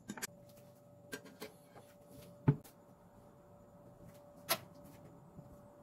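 A handful of light knocks and taps on a wooden cutting board as the pumpkin pieces are handled. The loudest comes about two and a half seconds in, another about four and a half seconds in, and a faint steady hum runs underneath.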